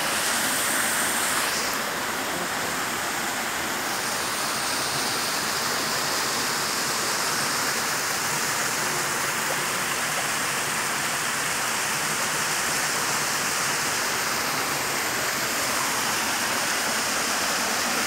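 Small waterfall and stream rushing steadily over rocks: an even, unbroken splashing.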